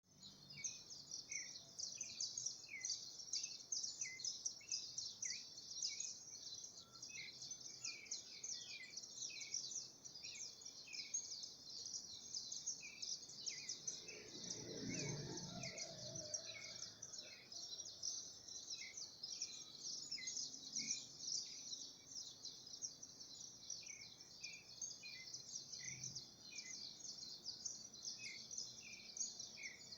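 Birds singing: short downward-slurred notes repeated about twice a second, over a dense, continuous high-pitched chirping chorus. A brief low rumble rises and fades about halfway through.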